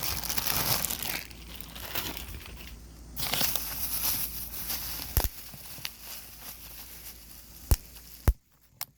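Plastic packaging crinkling and rustling as it is handled and torn, followed by a few sharp pops of bubble wrap near the end, the loudest just before the end.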